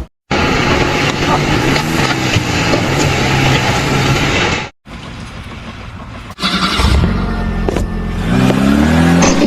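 Engine noise in several short clips cut together abruptly. Near the end an engine revs up, its pitch rising.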